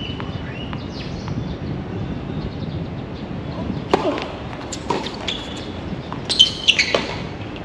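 Tennis ball struck by rackets during a doubles rally on a hard court: a serve about four seconds in, then several more sharp hits and bounces about a second apart, the loudest near the end.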